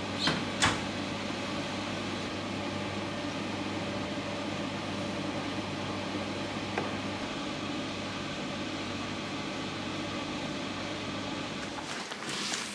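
Steady hum and whir of laundry-room machines and ventilation, with a low even drone. A couple of sharp knocks come about half a second in, and a faint click around the middle; near the end the hum drops out and rustling handling noises begin.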